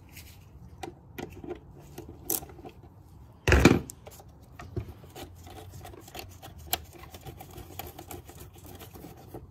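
Hands working on the plastic air-intake parts in a car's engine bay: scattered light clicks and rubbing, with one louder burst of handling noise about three and a half seconds in.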